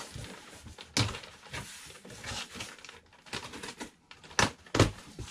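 Plastic packaging crinkling and cardboard rustling as parts are handled inside a shipping box, with a few sharp taps: one about a second in and two close together near the end.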